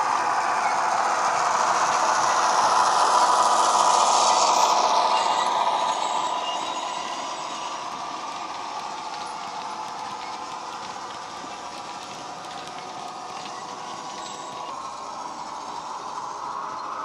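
Model Irish 181-class diesel locomotive's ESU LokSound sound decoder playing an EMD 8-645 diesel engine sound through its small speaker. It is loudest in the first few seconds as the loco passes, then fades about six seconds in while its wagons roll by.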